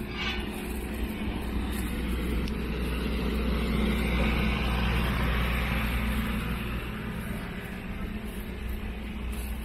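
Diesel-hauled Kushiro Shitsugen Norokko train standing at the platform with its engine idling: a steady low hum that swells louder midway.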